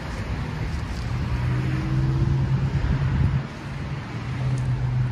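Road traffic on a busy street: cars driving past, with a steady low engine hum.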